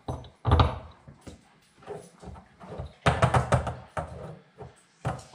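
Plastic knocks and clatter from handling an RC buggy wheel and its plastic hex inserts on a workbench: a few separate knocks, a loud one about half a second in, and a longer run of rattling clicks about three seconds in.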